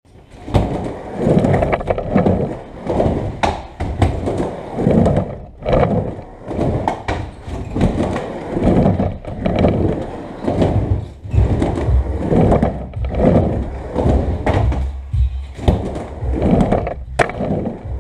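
Skateboard wheels rolling back and forth across a wooden mini ramp, the rumble swelling and fading about once a second with each pass. A few sharp clacks from the board stand out over it.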